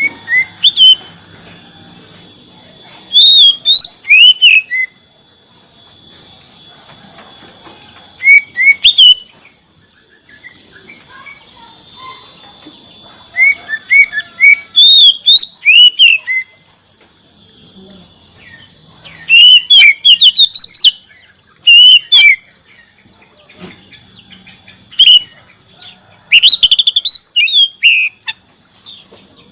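Oriental magpie-robin (kacer) singing loudly in bursts of rapid whistled phrases every few seconds, over a faint steady high background hum.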